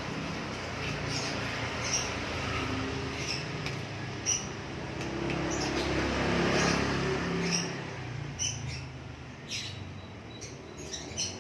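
Small birds chirping, with short high chirps repeated every second or so, over a low rumble that swells and fades in the middle.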